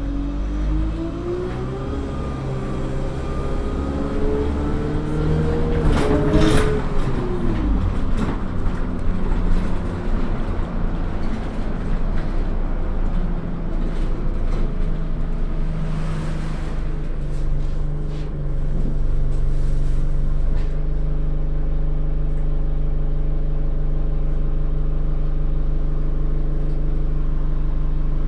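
Bus engine and gearbox heard from inside the cabin, rising in pitch as the bus pulls away for the first few seconds. A short sharp noise comes about six seconds in. From about twenty seconds in the engine settles to a steady, even hum.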